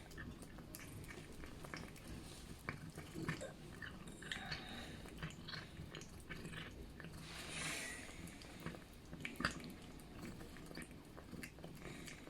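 Cat eating wet food in jelly: soft, irregular wet clicks and smacks of chewing, with a short rush of noise about seven and a half seconds in.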